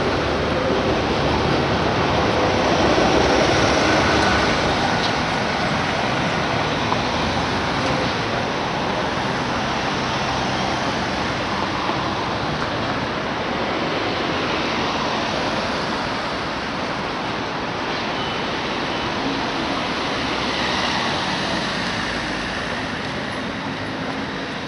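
City street traffic noise: a steady wash of tyre and engine sound from cars and a van passing, a little louder a few seconds in as a car goes by close.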